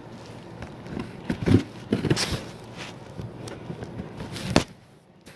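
Packaging being cut and pulled open by hand with a knife: irregular rustling, scraping and small knocks, with one sharp click about four and a half seconds in.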